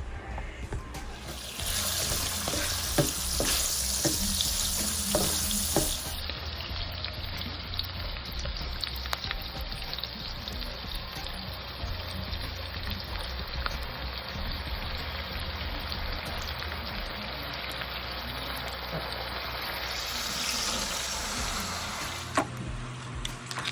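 Food sizzling in a hot pan, a steady frying hiss, with a few clicks of a utensil stirring in the first few seconds.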